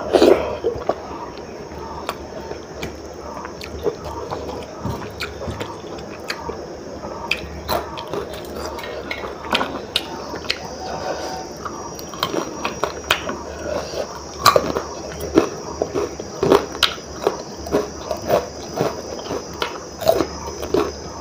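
Close-up eating sounds from a person eating khichdi by hand: wet chewing and lip smacks, with crunches of fried papad and sticky squishing as fingers mix the rice in a steel plate. The sounds come as many short smacks and crunches at an irregular pace.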